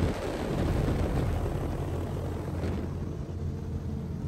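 Hovercraft heard from on board, its engine and fan running with a steady low drone under a broad rush of wind noise.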